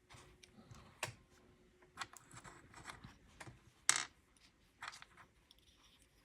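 LEGO minifigure pieces being handled: a scatter of light plastic clicks and small rustles, the sharpest about four seconds in.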